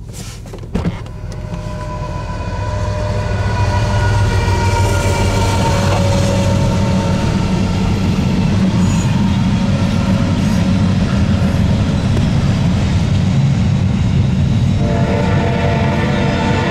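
Freight train passing close by: the rumble of the ET44AC and SD70ACe locomotives and then the double-stack container cars, building over the first few seconds. The locomotive horn sounds over it, its chord dropping in pitch as the engines pass. There is a sharp knock just under a second in, and a higher ringing tone joins near the end.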